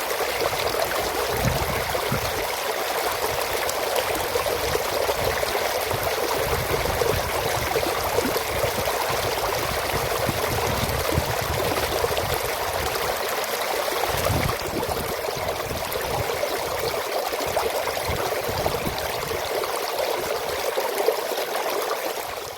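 Water rushing steadily through an aqueduct channel, with low rumbles coming and going underneath.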